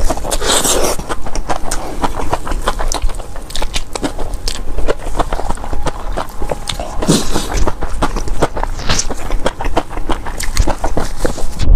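Close-miked chewing of Buldak fire noodles rolled in liangpi: a dense, irregular run of wet mouth clicks and smacks as the chewy noodles are bitten and chewed.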